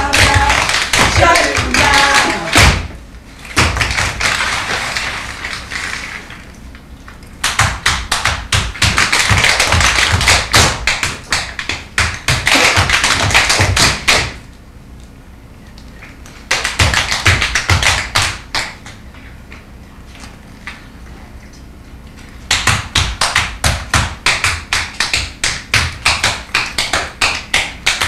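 Tap dancers' shoes striking a wooden stage in fast, rhythmic runs of taps. The runs come in bursts of several seconds, separated by quieter stretches of a few seconds each.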